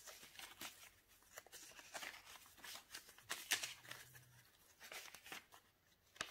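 Paper pages and card inserts of a handmade junk journal being leafed through by hand: a string of soft paper rustles and page flips.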